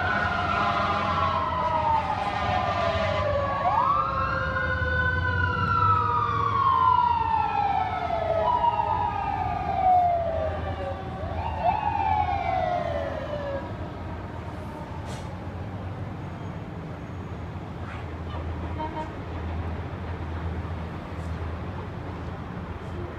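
Fire engine sirens wailing: several overlap, each rising and falling in pitch, then dying away about thirteen seconds in. A steady low rumble of engines and traffic runs underneath.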